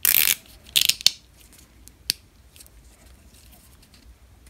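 Plastic cable tie being zipped tight through its ratchet head: two quick rasping zips in the first second, followed by a sharp click and another click about two seconds in.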